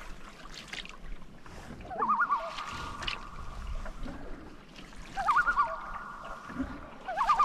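Canoe paddle strokes in water with drips and splashes, each stroke bringing a short wavering squeak followed by a brief steady squeal, repeating every two to three seconds.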